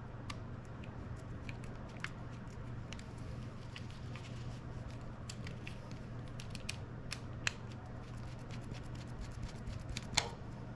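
Flathead screwdriver scraping and clicking in a Phillips screw as a kill-switch clamp is screwed onto a handlebar: irregular small metal clicks and ticks, a couple sharper ones near the end, over a steady low hum.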